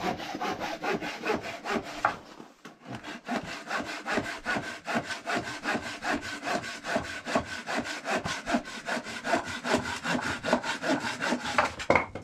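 Saw cutting wood with rapid, regular back-and-forth strokes, pausing briefly about two seconds in.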